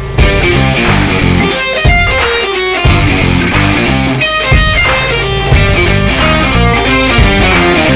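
Background music: a guitar-driven track with a steady bass line.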